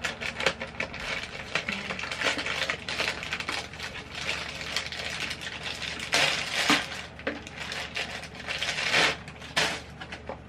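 Packaging crinkling and rustling as it is handled and opened by hand, with small clicks throughout and louder rustles about six and nine seconds in.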